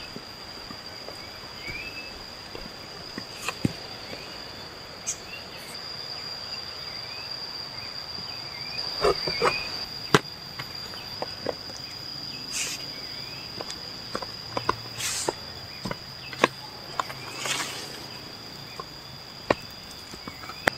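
A steady, high-pitched insect drone, with faint short chirps over it. On top come rustling leaves, footsteps on the leaf-littered path and several sharp knocks and thumps, the loudest about nine to ten seconds in.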